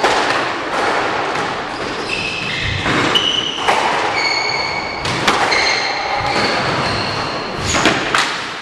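Squash ball knocked off racquets and court walls, a handful of sharp cracks ringing in a large hall, with high squeaks from court shoes on the hardwood floor between them.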